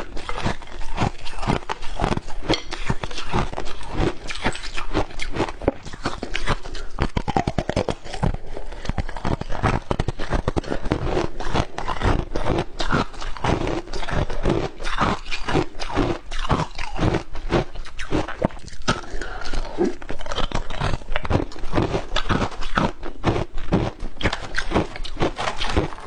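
Crushed ice being bitten and chewed close to a clip-on microphone: dense, rapid, irregular crunching.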